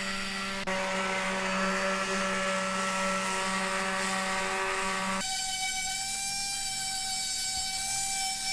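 Electric orbital sheet sander running steadily against the edge of a plywood board, a constant motor whine. Its tone changes suddenly about a second in and again about five seconds in.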